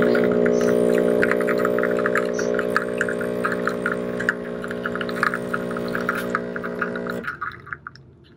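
Single-serve pod coffee machine brewing: the pump hums steadily while coffee streams and spatters into a mug. The hum stops about seven seconds in, leaving a few last drips.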